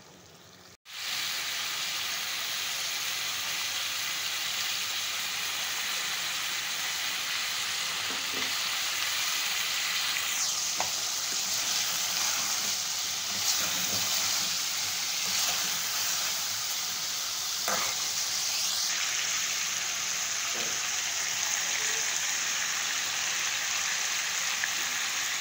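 Mutton pieces sizzling steadily in hot oil in a steel karahi, with a few light clicks of a metal spoon against the pan as it is stirred.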